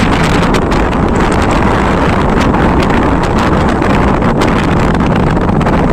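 Wind buffeting the microphone: a loud, steady rumble with crackles, over the splashing of river water around people ducking under the surface.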